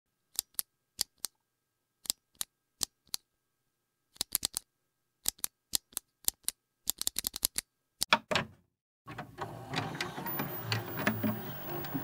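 A series of sharp, dry clicks over dead silence, some single and some in quick runs of four to six, in the manner of an edited-in sound effect for an animated title. About nine seconds in this cuts to outdoor ambience: a low rumble of wind on the microphone and faint distant voices.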